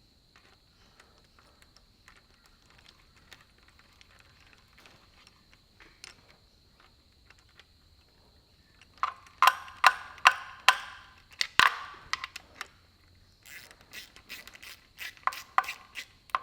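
Hand ratchet clicking as small bolts are tightened, faint at first and then in louder runs of sharp clicks from about nine seconds in, with a short pause near the end.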